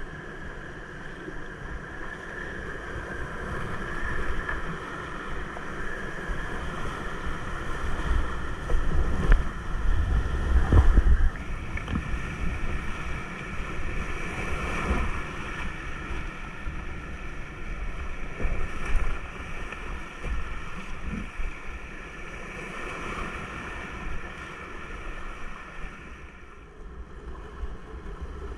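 Whitewater rushing around a kayak, heard through a deck-mounted action camera as it runs a rapid, with low buffeting and knocks on the microphone getting louder about eight to eleven seconds in.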